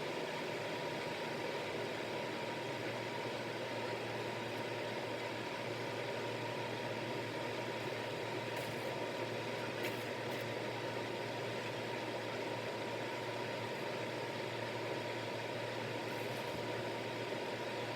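Steady whirring hiss of a small electric motor, with a constant hum and a thin steady tone, unchanging throughout.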